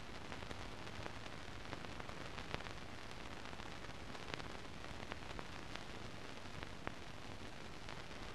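Steady hiss with scattered faint clicks and crackles: the empty soundtrack of a silent archive newsreel film, carrying no recorded sound.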